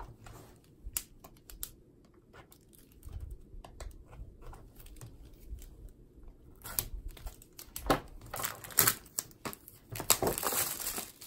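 Plastic shrink-wrap on a cube box being punctured and torn off by hand, crinkling. Faint scattered ticks for the first few seconds, then louder, denser crinkling and tearing through the last four seconds or so.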